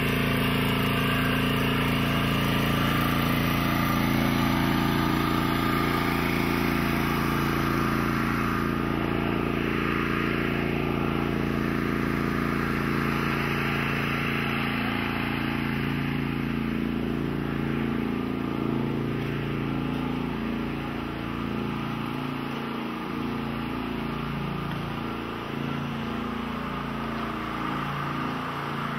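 Portable generator's small engine running steadily, a little fainter and less even in the second half.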